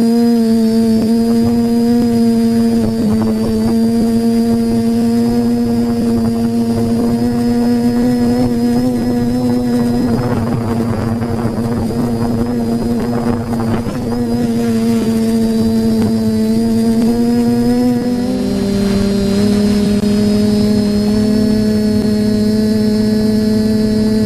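Quadcopter drone's electric motors and propellers buzzing with a loud, steady hum. A stretch of rushing noise comes in the middle. Near the end the pitch splits in two as the motors change speed.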